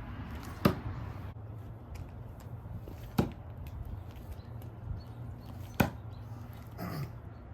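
Willow Leaf throwing knives striking a target, three sharp hits about two and a half seconds apart, with a weaker sound near the end.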